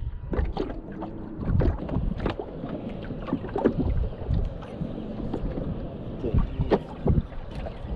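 Wind buffeting the microphone, with scattered light knocks and clicks as rod and reel are handled and cast in a small aluminum boat.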